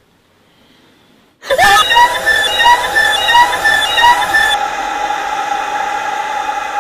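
A sudden, loud horror jump-scare sting about a second and a half in: a sharp rise in pitch, then four short shrill repeated notes about 0.7 s apart over a steady held tone that slowly fades.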